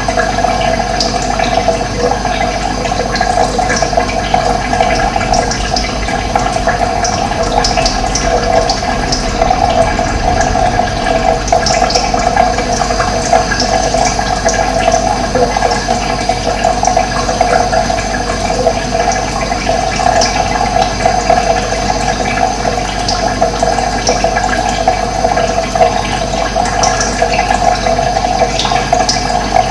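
Steady rush of running water, with short high notes scattered through it.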